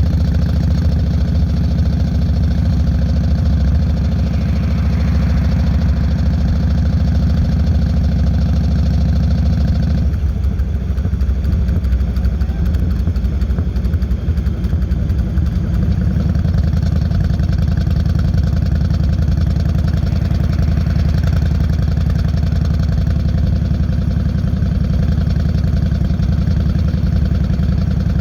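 Yamaha Road Star 1600 air-cooled V-twin running through Vance & Hines Longshots exhaust pipes, out on a ride. The steady engine note thins suddenly about ten seconds in, turns rougher for a few seconds, then evens out again.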